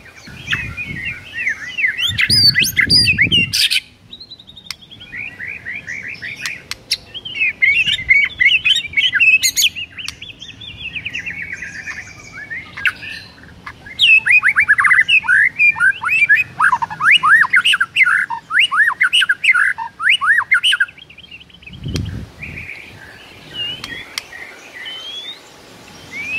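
Male white-rumped shama singing a long, fast, varied song of sweeping whistles and chattering phrases, with short pauses about four seconds in and again near the end.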